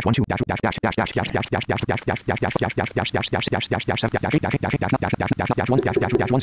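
Fast, choppy synthetic screen-reader speech from iPhone VoiceOver, a rapid even stutter of about seven or eight syllables a second, as it reads out decibel values while a threshold slider is adjusted.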